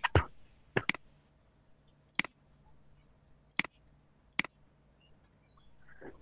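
Computer mouse clicking: about six sharp, separate clicks, two of them in quick succession about a second in.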